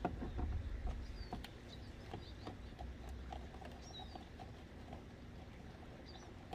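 Faint birds chirping in short calls, with a few light clicks from hands working plastic door-panel parts, over a low rumble.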